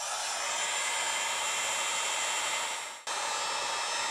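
Electric heat gun blowing steadily, a fan rush with a faint whine, used to shrink heat-shrink tubing over a crimped lug on a red cable. The sound cuts out briefly about three seconds in, then resumes.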